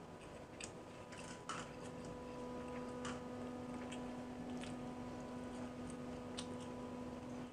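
Hand-eating of pakhala bhata (rice soaked in water): quiet chewing and the wet squish of fingers mashing rice in the water, with several short clicks scattered through. A faint steady hum runs underneath.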